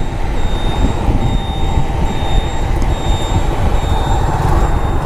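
Steady, heavy low rumble of street traffic, with a faint high beep repeating at an even pace.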